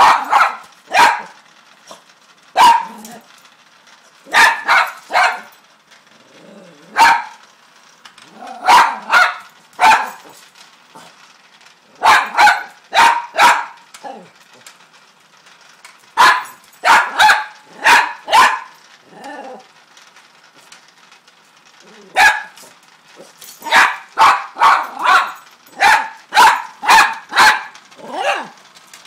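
Toy fox terrier barking at a Hexbug Nano vibrating toy bug: sharp, high barks, some single and some in quick runs of several, with pauses of a few seconds between runs.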